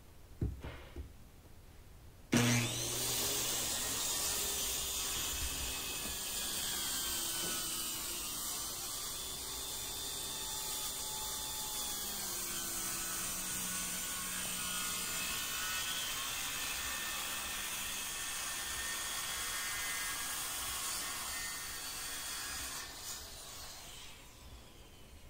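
Skil circular saw starting suddenly a little over two seconds in and ripping a 1.5-inch strip off the bottom of a primed interior door. It cuts steadily for about twenty seconds and stops near the end. A short knock comes about half a second in, before the saw starts.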